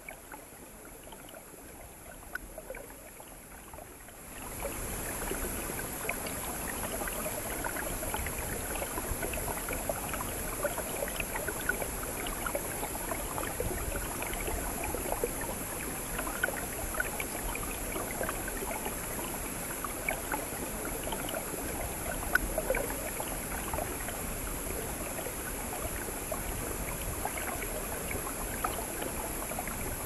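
Mountain stream water rushing and splashing over rocks close to the microphone, below a partly frozen waterfall. Faint at first, it becomes much louder about four seconds in.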